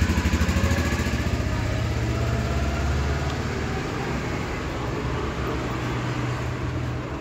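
Motor vehicle engine running, heard as a steady low rumble of road traffic that eases off gradually.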